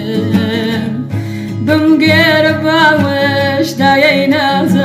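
A song: a voice singing with wavering vibrato over plucked string accompaniment and steady low notes.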